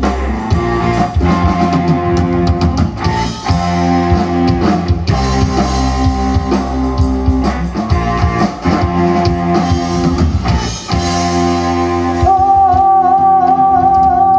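Live rock band playing amplified electric guitars over a drum kit with a steady beat. Near the end the band holds one long, loud chord with a wavering high note on top.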